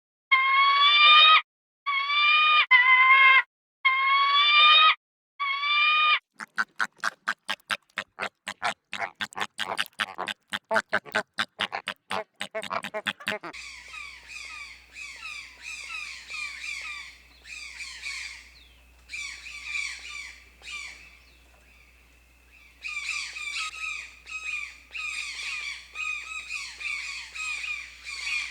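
Animal calls in three runs: first a series of short pitched cries about a second long each, then a fast clicking chatter, then a dense run of high squawking chirps with a faint hum beneath.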